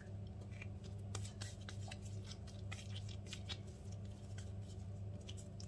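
Hands rolling and pressing soft bread dough into balls on a silicone baking mat: a quick run of small sticky clicks and taps, over a steady low hum.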